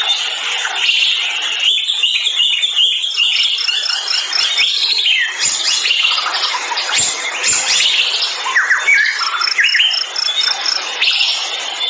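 Many forest birds calling at once, a dense chorus of chirps and trills. A quick run of evenly spaced high notes stands out twice, about three seconds in and again about nine seconds in.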